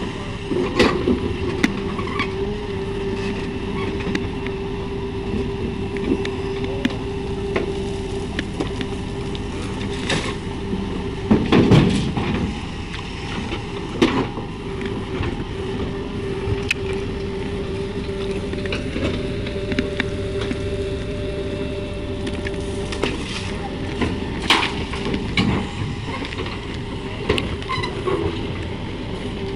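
JCB 3DX backhoe loader's diesel engine running steadily under load as the backhoe digs, with a steady whine throughout. Several knocks and clanks from the bucket working the earth, the loudest about twelve seconds in.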